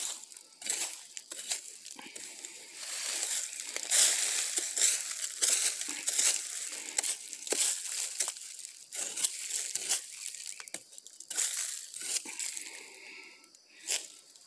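Footsteps crunching and rustling through dry leaf litter, a run of irregular crackles, busiest in the first half and thinning out near the end.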